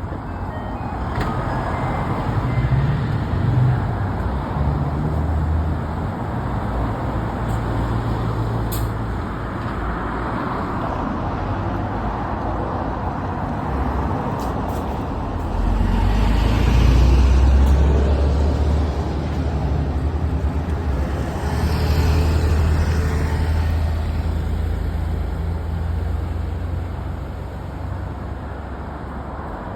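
A diesel route bus pulling away from a stop: the engine rumbles at low revs, then its rumble swells about halfway through as the bus accelerates, swells again briefly a few seconds later, and eases off toward the end. Short hisses of air come with the loudest moments.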